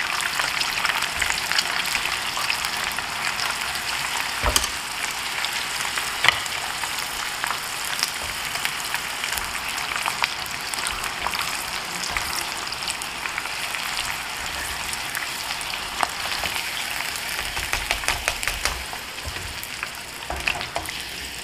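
Batter-coated shrimp deep-frying in a pan of hot oil, sizzling and crackling steadily, with a couple of sharper clicks about four and six seconds in.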